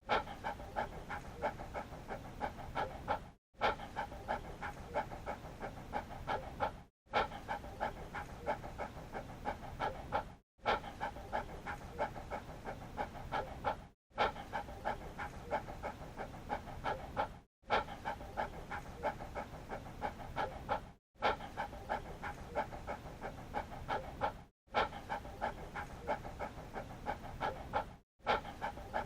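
Dog panting in quick, even breaths. The same stretch of about three and a half seconds repeats, with a brief silent gap between repeats.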